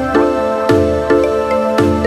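Background music: sustained pitched notes over a regular, steady pulse.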